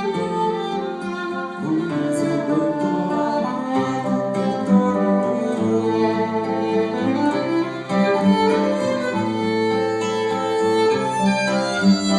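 Instrumental passage of a live ballad between sung verses: a melody of long held notes over a moving bass line.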